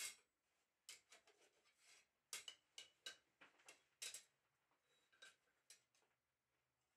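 Faint, irregular light clicks and ticks, about fifteen, some with a brief metallic ring, bunched in the first four seconds and thinning out before stopping about six seconds in.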